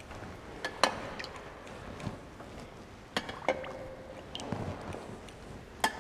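A few sharp clinks and knocks of small hard objects being handled, spread a second or two apart, one ringing on briefly about halfway through.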